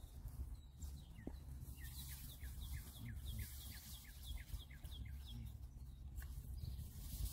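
A songbird singing a fast series of short downward-slurred notes, about four a second, starting about two seconds in and stopping near five seconds, with a few single chirps around it. A low steady rumble lies beneath.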